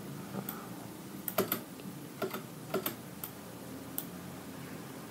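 Irregular, sparse clicks from a computer mouse and keyboard being worked, about eight in all, over a faint steady hum.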